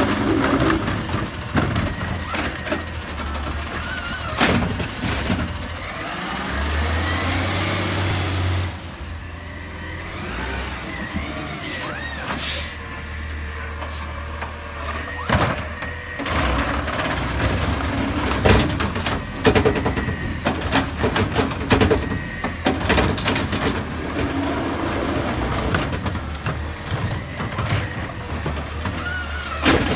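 Autocar ACX garbage truck with a McNeilus ZR automated side-loader arm at work. The engine runs steadily while the hydraulic arm sets down an emptied cart and reaches out to grip the next one. There are repeated sharp clanks and knocks from the gripper and the plastic carts, and hisses of air.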